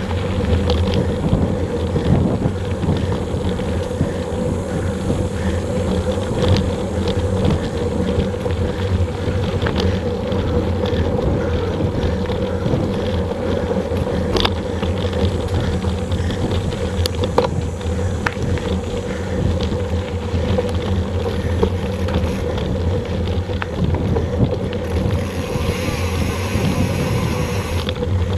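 Mountain bike riding fast over a dirt trail, picked up by an action camera on the bike: a steady rumble of tyres and wind on the microphone, with scattered clicks and rattles from the bike over the rough ground.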